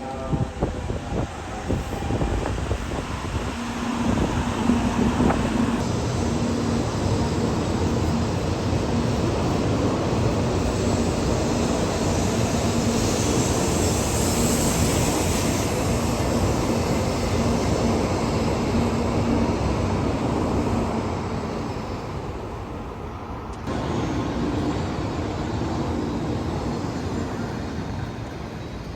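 Shinkansen bullet train running at speed: a long, steady rush of wind and rail noise with a faint hum in it, easing off and changing abruptly about 24 seconds in.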